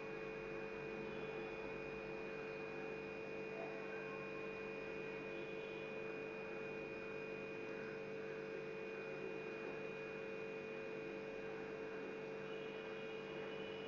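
Room tone: a steady hum made of a few unchanging tones over a faint hiss, with nothing else happening.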